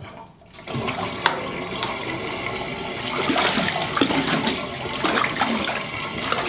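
Dirty bath water draining out of a stainless steel sink with the plug pulled, a steady gurgling rush down the plughole that starts about a second in.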